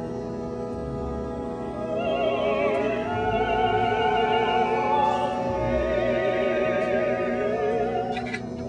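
Background music: operatic singing with a wide vibrato over held orchestral notes. The voice comes in about two seconds in and fades near the end.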